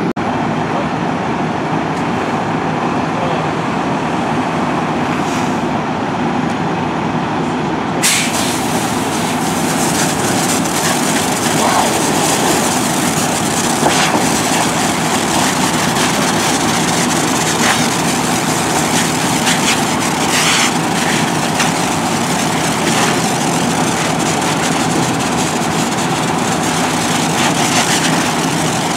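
Fire engine's diesel engine running steadily while it pumps. About eight seconds in, a loud hiss of a hose stream spraying water begins and continues.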